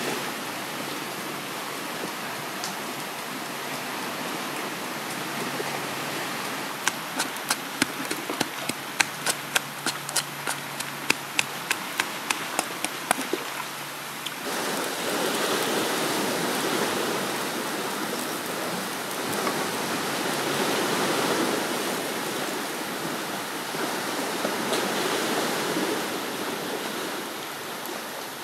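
A run of quick sharp taps, about three a second, for several seconds. Then, about halfway through, a frying pan of water with chitons in it boils hard, a loud steady bubbling.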